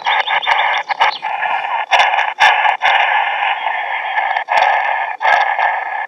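ATS-20 shortwave receiver's speaker hissing with band noise in upper-sideband mode on the 14 MHz band, broken by sharp clicks as it is tuned. The clicks come quickly through the first second, then about every half second. The clicks come from interference from the receiver's own digital section.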